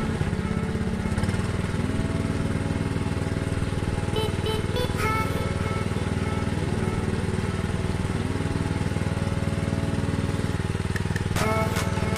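Small petrol-engine water pump running steadily, pushing water through a flat canvas hose. Background music with slow, held melodic notes plays over the engine.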